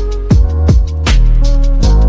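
Loud background music: electronic music with a heavy bass line and a steady drum beat.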